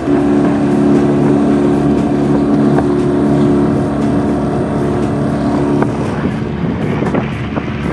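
A 9.9 hp Mercury outboard motor running steadily under way, pushing a heavily loaded inflatable boat, with wind and water rushing past. The steady engine tone drops away about six seconds in.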